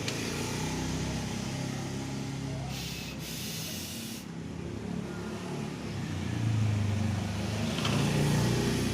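Motor traffic: engines running, growing louder about six seconds in as a vehicle comes close. A hiss lasting about a second and a half comes about three seconds in.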